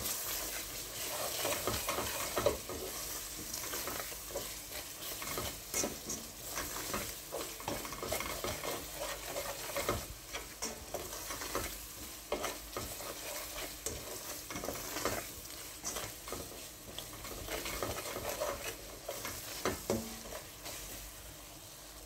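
Onion and spice masala sizzling in oil in a steel pot while a metal spoon stirs and scrapes it, with frequent irregular clicks of the spoon against the pot. The masala is being fried (bhunna) with ground spices and garlic-ginger paste. The sizzle quietens near the end.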